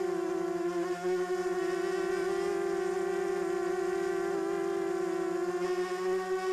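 Diatone 250-size quadcopter's motors and propellers whining steadily, picked up close by the camera mounted on the quad, the pitch wavering slightly as the throttle shifts.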